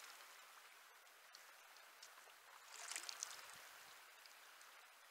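Faint flow of a river current, with a brief splash of water about three seconds in.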